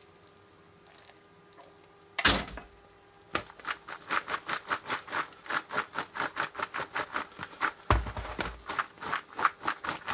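A knock, then popcorn being stirred in a bowl to coat it with hot caramel syrup: a fast, even rhythm of scraping, rustling strokes, about three to four a second.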